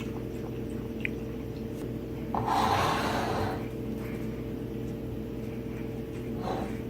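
A steady low machine hum, with two short breathy snorts over it, one about two and a half seconds in and one near the end.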